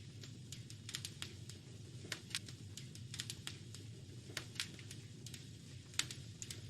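Wood fire crackling in a fireplace: irregular sharp snaps and pops over a low steady rumble, with one sharper pop near the end.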